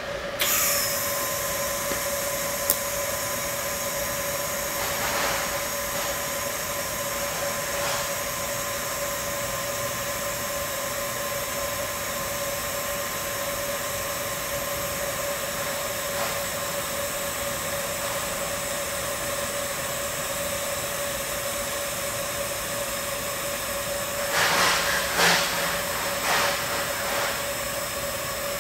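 Autogenous TIG welding arc on a stainless steel sanitary pipe fitting: a steady hiss with an even high-pitched hum. A few louder bursts of noise come near the end.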